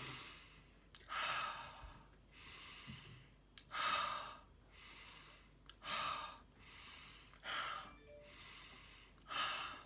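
A man breathing deeply and slowly as a vocal warm-up: in through the nose and out through the mouth, about five breaths in a steady rhythm.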